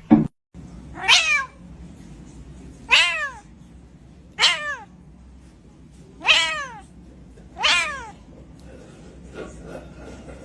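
A cat meowing five times, each call short and falling in pitch, spaced one to two seconds apart. A brief sound comes right at the start, just before the first meow.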